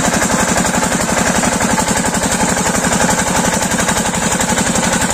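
8 hp single-cylinder diesel pumpset engine running steadily with a fast, even chug, while the water it pumps gushes from the outlet and splashes into a pool.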